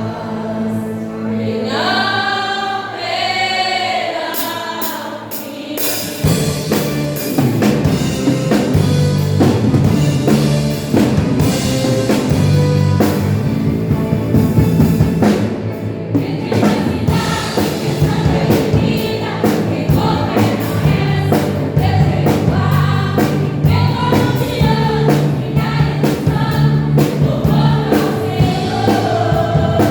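Women's church choir singing a gospel hymn. The voices are lightly backed at first; about six seconds in, a band comes in with bass and a steady beat.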